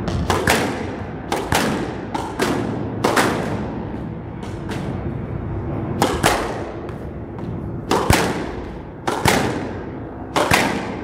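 A squash ball being hit back and forth: sharp cracks of racket on ball and of the ball striking the court walls, often in quick pairs a fraction of a second apart, each with a short echo off the walls.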